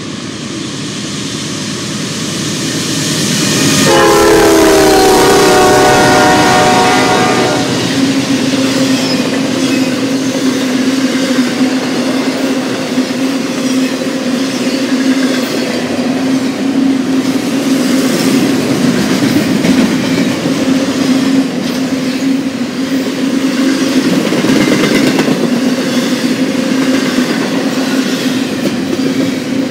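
Diesel-hauled intermodal freight train approaching and passing: the rumble grows, the locomotive sounds one long horn blast about four seconds in, and then the double-stack container cars rumble and clatter past over the rails with a steady hum.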